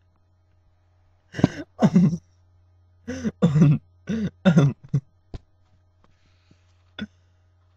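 A person's voice in short bursts, two and then four, with a sharp click and one brief burst afterwards. A steady low electrical hum runs underneath.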